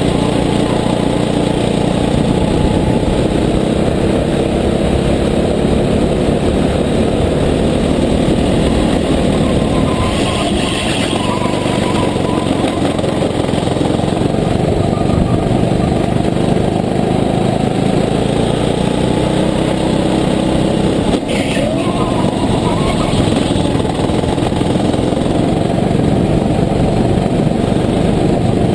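Sodi rental kart's engine running hard under load, heard from the seat, its pitch rising and falling as the driver accelerates and lifts through the corners.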